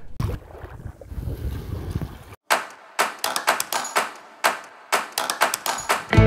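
Low rumble of wind and road noise from a moving motorcycle that cuts off suddenly about two and a half seconds in. After it comes a run of sharp hits, each with a short ringing tail, about two a second, from an intro sting.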